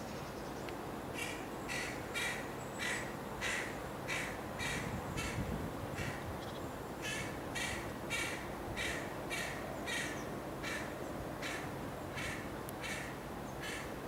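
Juvenile carrion crow begging: a run of short, harsh calls about two a second, pausing briefly mid-way and then starting again.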